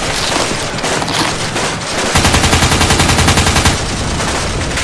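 Battle gunfire: a dense din of shots, then a long burst of rapid automatic machine-gun fire from about two seconds in until nearly four seconds in.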